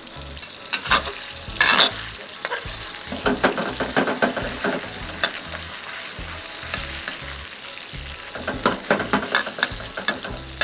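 Beef strips sizzling in hot oil in a wok, with a metal wok spatula scraping and clinking against the pan as they are stirred. The clatter comes in clusters, loudest about two seconds in and again near the end.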